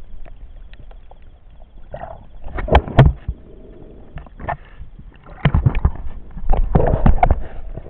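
Underwater handling noise on a submerged camera: irregular knocks and clicks over a low rushing rumble, coming in two busy patches, the loudest knocks about three seconds in.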